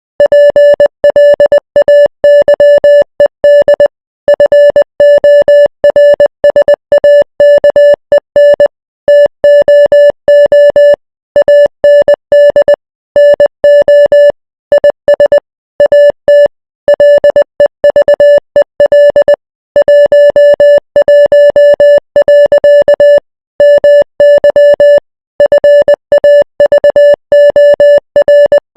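Morse code sent as a steady beep tone, keyed on and off in short dots and longer dashes, with brief pauses between letters and longer gaps between words.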